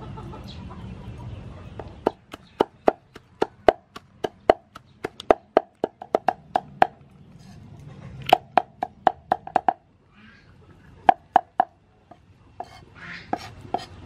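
Cleaver chopping dried sweet peppers on a round wooden chopping block: rapid sharp knocks, about four or five a second, in runs with short pauses, starting about two seconds in.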